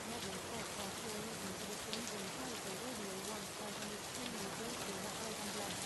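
Steady rain noise, with a faint voice speaking underneath it.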